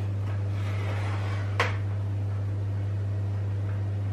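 Knife blade scraping along the inside of a metal baking tray, working a cake loose from the ungreased tin, with one sharper scrape about a second and a half in. A steady low hum sits underneath.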